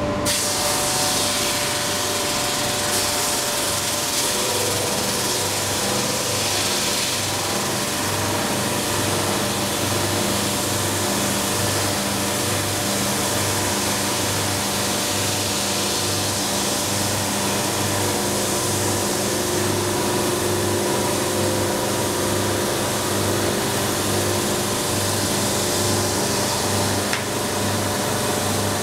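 JET 22-44 OSC drum sander running with its dust extraction, the abrasive drum sanding a ziricote board fed through on the conveyor: a steady machine hum with a hiss of sanding that is strongest in the first several seconds.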